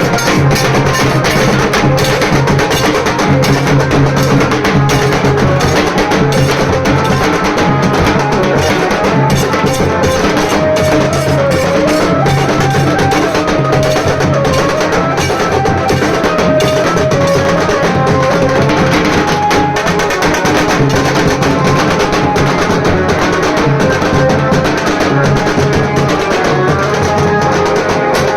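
Nasik dhol ensemble playing a fast, dense drum rhythm at a loud, steady level, with a melody line moving over the drumming.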